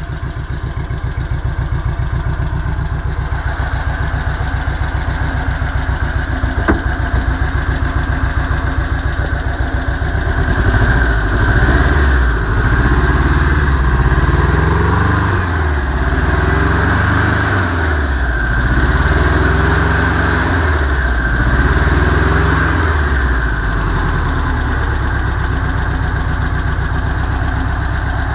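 1959 Volkswagen Type 2 split-window bus's air-cooled flat-four engine idling steadily. It is then revved up and let fall back several times in a row, and settles back to idle near the end.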